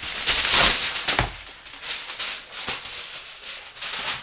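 Heavy-duty aluminium foil crinkling and rustling as a sheet is pulled off the roll and folded around a ham: a loud burst of crinkling in the first second with a sharp crack just after, then smaller crinkles.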